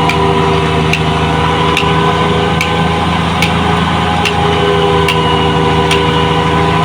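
Concrete mixer truck's diesel engine running steadily, with a sharp tick repeating a little more than once a second.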